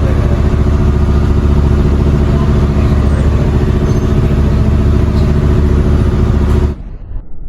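Dive boat's engine running steadily, a loud, even hum. Near the end it cuts off suddenly to a much quieter, muffled sound.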